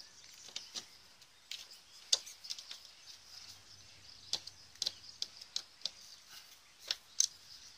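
Irregular small clicks and scrapes of a screwdriver working against a plastic external TV aerial socket plate on a motorhome's side wall, the blade pushed through the socket's foam seal.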